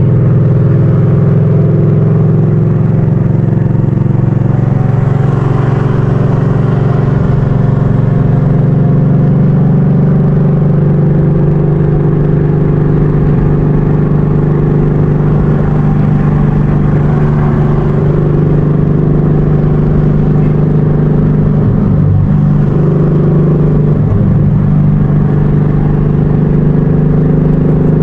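Ford Mustang GT's 5.0 Coyote V8 with a loud dump exhaust, heard from inside the cabin while driving. It runs as a steady, loud drone, with a couple of brief breaks in its note near the end.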